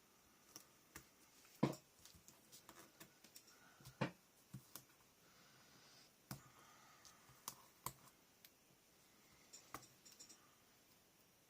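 Scattered light clicks and taps, a dozen or so spread irregularly, from small chipboard pieces and paper cut-outs being picked up and set down on a craft table.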